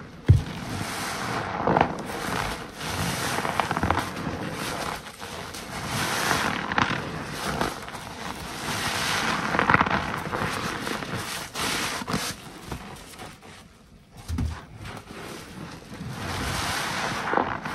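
Waffle car-wash sponge soaked in thick suds, squeezed and squished by gloved hands: wet squelching and crackling of bursting foam, in repeated squeezes with a short lull about fourteen seconds in.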